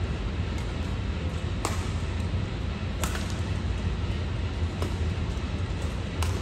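Badminton rally: a racket strikes a shuttlecock with sharp cracks about every second and a half, four times, over a steady low hum.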